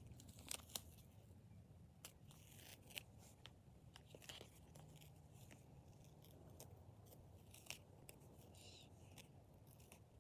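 Faint, scattered crackles and clicks of duct tape being handled and pressed onto a cardboard helmet.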